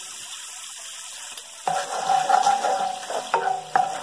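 Sweet-and-sour sauce simmering and bubbling in a nonstick wok. Then, from about a second and a half in, a wooden spatula stirs and scrapes through the sauce, knocking against the pan twice near the end.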